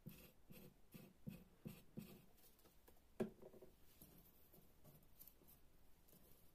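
Quiet paper-craft handling on a tabletop: soft rubs about three times a second as white glue is squeezed along a paper strip, then one louder knock on the table about three seconds in, then faint paper rustling.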